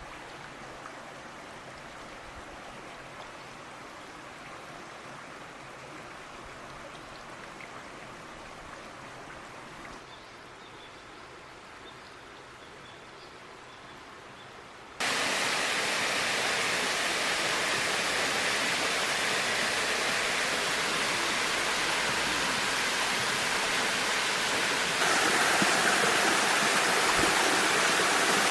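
Rushing water of a waterfall and its rocky stream: a steady hiss of flowing water, fairly soft at first, then suddenly much louder and fuller about halfway through, and louder again near the end.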